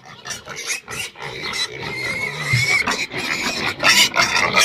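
A group of pigs squealing and screaming at feeding time: many short, overlapping squeals, one longer high squeal near the middle, getting louder toward the end.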